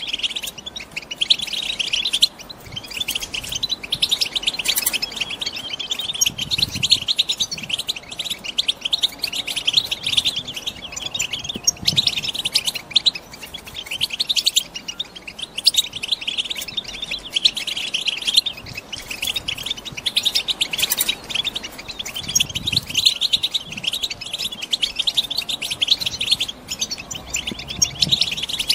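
Female European goldfinches twittering, a dense run of quick, high chirps that goes on without a break. This is the excited chatter of hens in breeding condition.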